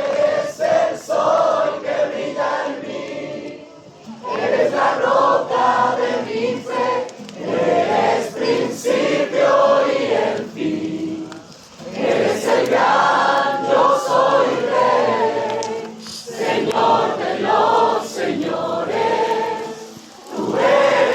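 A group of worshippers singing a Pentecostal praise song together in phrases of a few seconds, with short breaks between them.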